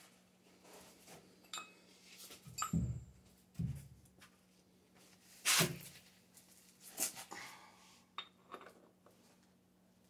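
Hand tools and metal parts being handled: scattered knocks, clinks and a few dull thuds, the loudest knock about five and a half seconds in, over a faint steady hum.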